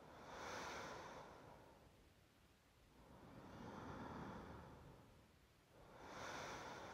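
A woman's slow, quiet breathing, as of someone asleep, close to the microphone: three long breaths a few seconds apart.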